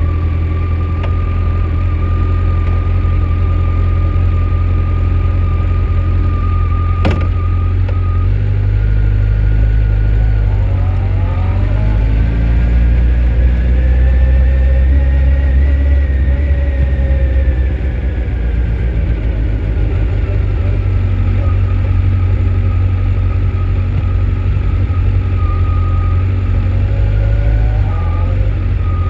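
2004 Honda CBR1100XX Blackbird's inline-four engine idling steadily, then its revs rise smoothly about 11 s in, peak about 16 s in, and fall back to idle by about 20 s, with a brief rise again near the end. A single sharp click about 7 s in.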